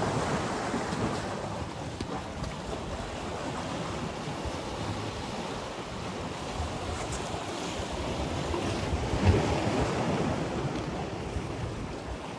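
Sea waves washing against a concrete-block breakwater, with wind buffeting the microphone. The surf swells near the start and again around nine to ten seconds in, where a brief sharp hit is the loudest moment.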